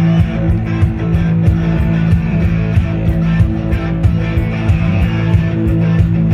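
Live rock band playing: electric guitars over bass and drums, with a steady cymbal beat about four times a second.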